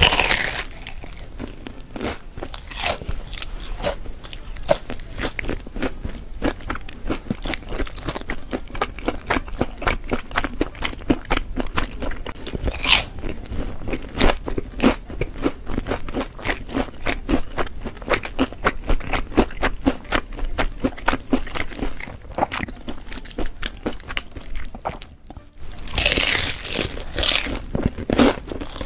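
Close-miked eating of crunchy food: bites and chewing with dense, irregular crisp crunches. There is a brief pause about 25 seconds in, then louder crunching.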